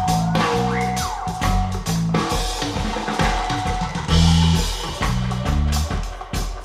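Pop music with a drum kit and a deep, pulsing bass line played back through Heco The Statement loudspeakers and heard in the room.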